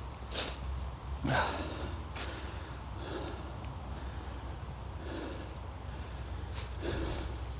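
A person breathing hard while hiking, about one breath every two seconds, with a few sharp crunches underfoot in the first two seconds.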